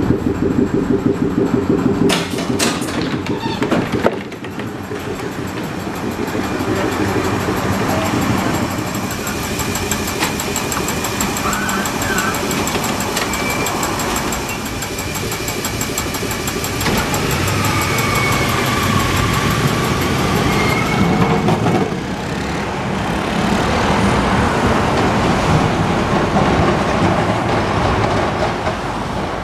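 A 1928 Peter Witt streetcar running, with a steady hum, for the first couple of seconds, then a few sharp clicks. From about four seconds in, street traffic noise as the streetcar pulls away from the stop and moves off down the street, with a few brief whining tones.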